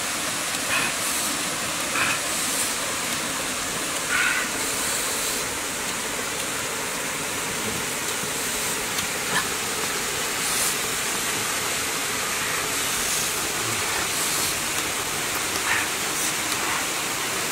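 Steady rush of a waterfall, with a few short faint clicks of handling over it.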